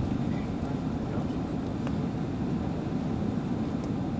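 Steady low roar of jet engines and rushing airflow heard inside an airliner cabin on approach to landing.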